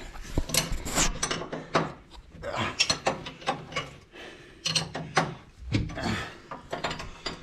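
Hand tools working on metal steering parts, possibly loosening the threaded tie rod from the drag link: irregular clicks and short scraping, rasping stretches.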